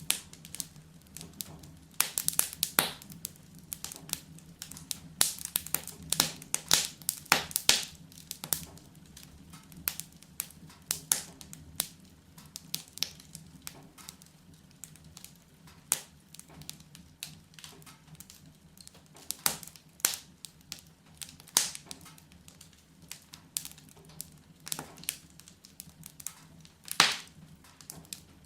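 Wood fire crackling, with irregular sharp pops and snaps of varying loudness over a faint steady low hum.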